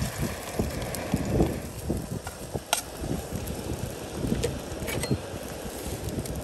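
Salmon roe frying in hot oil in a camp-stove pot, sizzling with a few sharp pops, while wind buffets the microphone.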